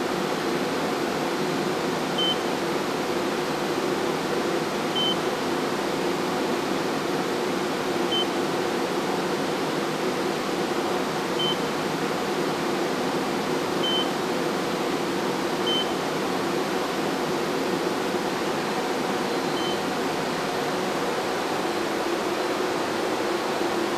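Seven short high beeps from a Rittal LCP cooling unit's touch screen as its buttons are pressed, spaced a few seconds apart. Under them runs the steady whir of server-room cooling fans.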